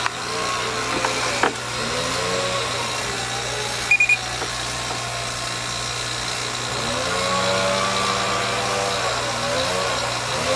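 Refrigeration vacuum pump running steadily while it evacuates an air-conditioning line set, the system pulled down to around 330 microns. A short high double beep sounds about four seconds in.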